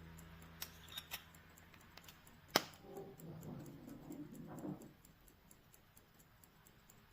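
Mechanical pocket watch ticking steadily, about five ticks a second. A few handling clicks and one sharp click sound about two and a half seconds in, followed by a brief soft rustle of handling.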